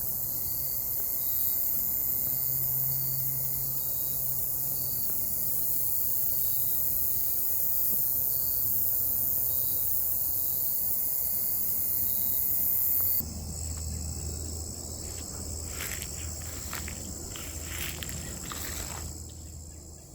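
A steady, high-pitched chorus of insects such as crickets. About two-thirds of the way in it changes abruptly, and a few short rustling or crunching noises follow, perhaps footsteps.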